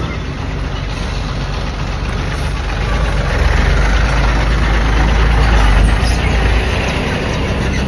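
City bus engine running close by, a steady low rumble that grows louder in the middle and eases off near the end as the bus pulls in and moves on.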